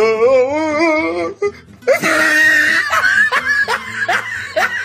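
Laughter over music: a long laugh whose pitch wobbles up and down for about a second, then more laughing and voices.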